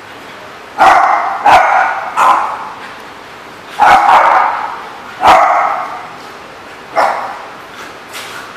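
Dogs barking in a hard-walled playroom: six loud single barks a second or more apart, each trailing off in the room's echo, and a softer bark near the end.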